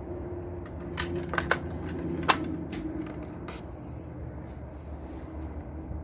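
Riding-mower oil dipstick being handled: a few sharp clicks and taps as it is pulled from and pushed back into its filler tube, over a steady low hum. The loudest click comes a little after two seconds in.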